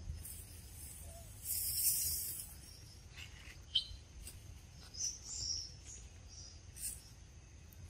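Forest ambience: a faint steady high insect drone, with scattered short bird chirps. A brief hissing burst about one and a half seconds in is the loudest sound, and a sharp single chirp comes just before four seconds.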